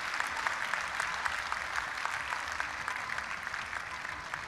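Audience applauding, many hands clapping, slowly dying down.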